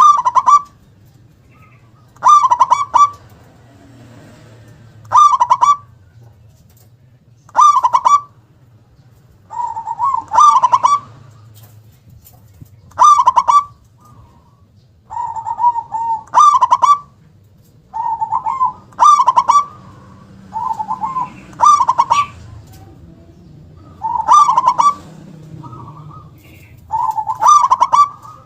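Zebra dove (perkutut) singing its cooing song: a short run of notes ending in a strong 'kung', repeated about every two to three seconds, some eleven times.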